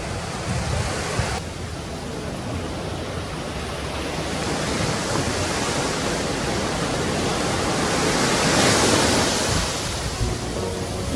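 Ocean surf: a steady wash of waves breaking on the shore, swelling to a louder breaking wave about eight or nine seconds in.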